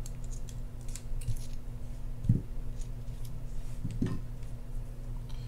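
Light scattered clicks and scrapes of small metal parts: a mini screwdriver pushing drag washers out of a fishing reel's brass main gear, and the washers being set down on the bench. Two soft knocks, about two and four seconds in, over a steady low hum.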